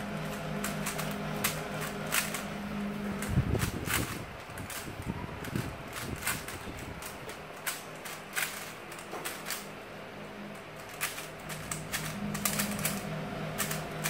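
3x3 Rubik's cube being turned fast by hand during a speed solve: a rapid, irregular clatter of plastic clicks as the layers snap round. A steady low hum runs underneath, dropping out about three seconds in and coming back near the end.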